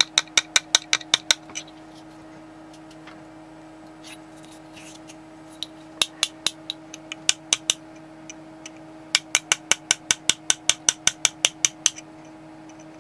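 Light, rapid hammer taps on the back of a hand graver made from a concrete nail, driving it to cut into a coin, about five taps a second in three runs. A steady hum runs underneath.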